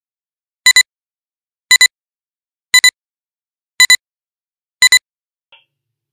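Countdown-leader beeps from a video intro: a quick double beep once a second, five times, each beep a clear high-pitched tone, stopping about five seconds in.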